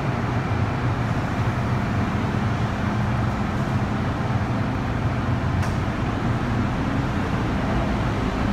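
Steady running noise of an MTR Metro-Cammell electric train heard inside the passenger car: a continuous rumble of wheels on rail and a low motor hum as the train moves through the tunnel.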